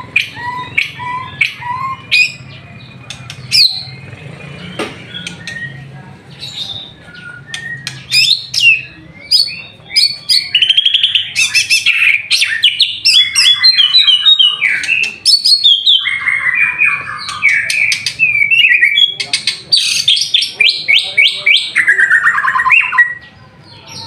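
White-rumped shama singing: a few short repeated whistles at first, then from about ten seconds in long, loud runs of rapid trilled notes, broken once by a short pause.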